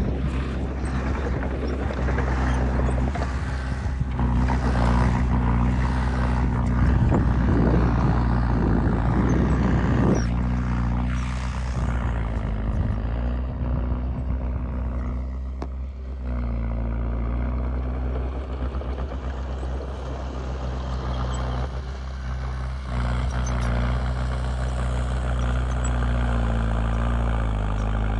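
Heavy diesel earthmoving machinery running steadily under load, with dense clattering and scraping over the engine for the first ten seconds or so. The engine pitch rises slightly a little past the middle and holds there.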